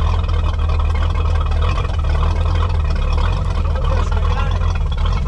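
A 1988 Ski Supreme's carbureted inboard engine running steadily just after being started without choke, on fresh oil and new spark plugs.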